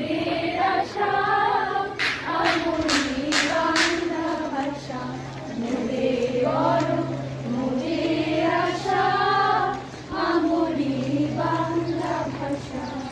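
A group of women's voices singing a song together in unison. A run of five sharp hits comes between about two and four seconds in.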